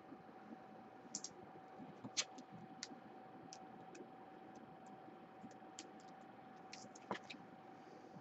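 Faint, irregular light clicks and ticks of trading cards being handled and flipped through, over a faint steady electrical hum.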